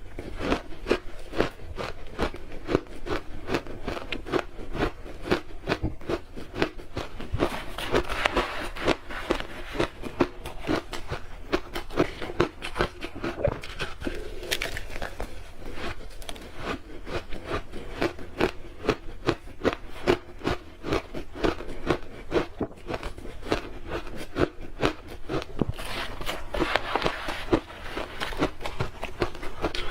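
Close-up chewing and biting of crunchy red-coloured ice, a dense run of sharp, irregular crunches and cracks.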